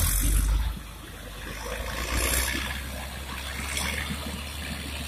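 Caterpillar motor grader's diesel engine running as a steady low hum, with wind rushing on the microphone, loudest in the first second.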